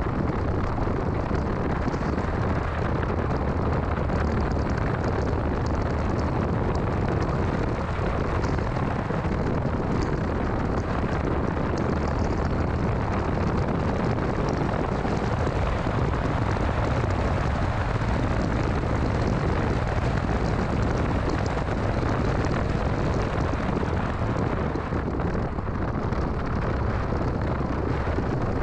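A 2006 Mini Cooper S being driven: steady, loud engine and road noise, heaviest in the low end, with no clear rise or fall in pitch.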